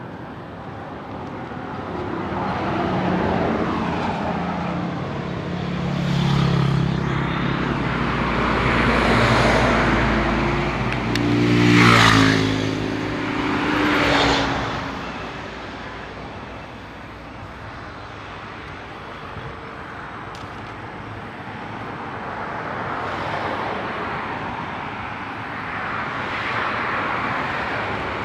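Road traffic passing close by: several motor vehicles go by one after another, the loudest about twelve seconds in, its engine note falling in pitch as it passes. A quieter stretch follows, then another vehicle passes near the end.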